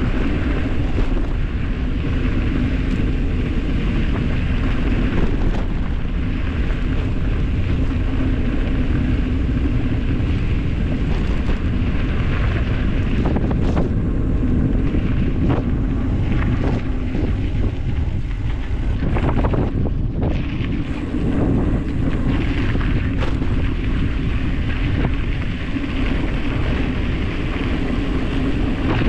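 Gravel bicycle descending a dirt road at speed: tyres rolling over dirt and gravel, with wind buffeting the microphone and scattered clicks and rattles from the bike.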